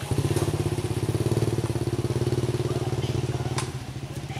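A small engine idling steadily with a fast, even pulse. It drops in level a little after three and a half seconds, just as a single sharp click sounds.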